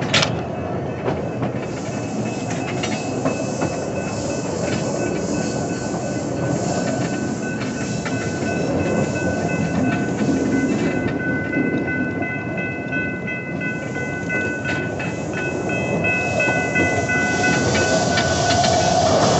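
Train rolling along the track: a steady rumble of wheels on rail with scattered clicks and knocks, and a high steady wheel squeal in the second half as it goes round a curve.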